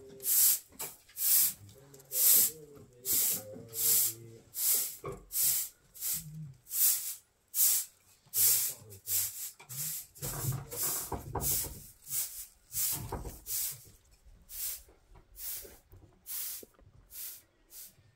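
A hand broom sweeping a floor in short rhythmic strokes, about two bristly swishes a second, growing fainter near the end.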